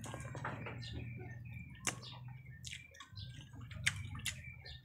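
Close-up eating sounds: wet chewing and lip-smacking, with a few sharp smacks, while a mouthful of chicken and rice is eaten by hand. A low steady hum runs underneath.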